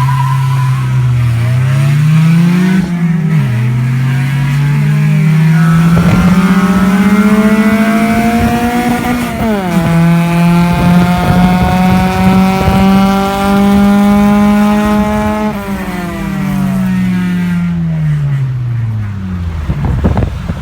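Honda Civic engine pulling as the car accelerates, the note climbing in pitch, dropping sharply at a gear change about nine seconds in, then climbing again. Near the end the engine eases off and the note falls as the car slows.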